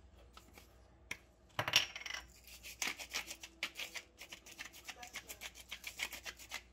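Hand-held salt grinder twisted over raw fish, coarse Himalayan salt crystals crunching through the grinder in a quick run of short clicks, with a louder clatter about a second and a half in.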